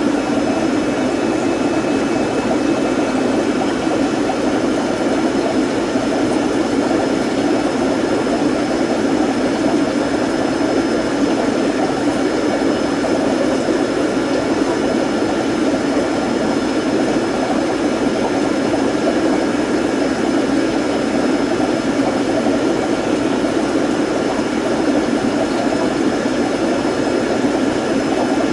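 Steady rushing hum of aquarium aeration equipment, an air pump driving sponge filters, with a few faint steady whines above it.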